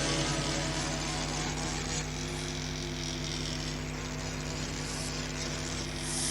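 Ship-style horn sounding one long, steady, low note.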